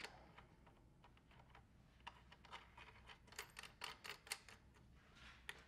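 Faint, irregular small clicks and taps of metal washers and a nut being handled and threaded by hand onto a brass terminal stud, mostly from about two seconds in.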